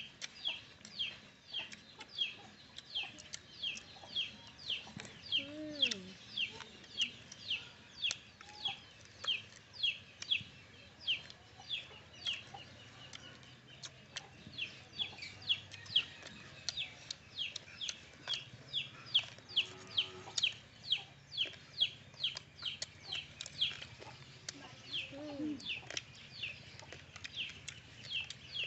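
Chicks peeping over and over: short, high cheeps that fall in pitch, about two a second. Twice a lower, falling call sounds in among them.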